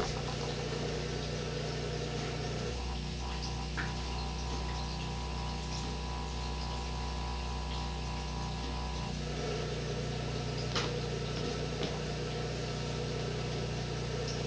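150-watt high-pressure sodium floodlight running at full brightness, giving a steady low electrical hum. Its tone shifts for several seconds starting about three seconds in.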